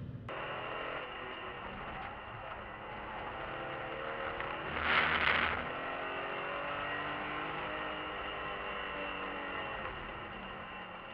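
BMW E46 M3's straight-six engine heard from inside the cabin, running under way with its pitch rising and falling. A brief loud rush of noise comes about five seconds in.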